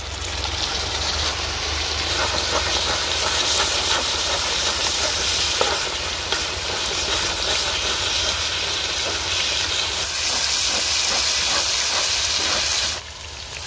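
Water poured onto a hot iron tawa of frying duck meat, sizzling and hissing loudly as it turns to steam, while a metal spatula scrapes and stirs the pieces across the pan. The sizzle drops sharply near the end.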